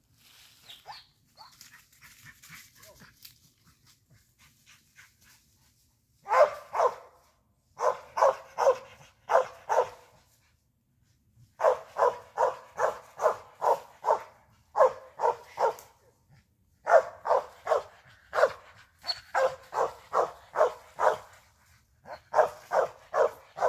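A squirrel dog barking at a tree in a steady chop of about three barks a second, in bursts with short pauses. The barking starts about six seconds in, after faint rustling in dry leaves. Sustained barking like this is a squirrel dog's treed bark, the sign it has a squirrel up the tree.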